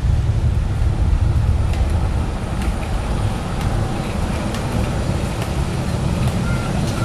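Kobelco SK200 hydraulic excavator's diesel engine running under load while it works soil, a steady low rumble with a few faint ticks.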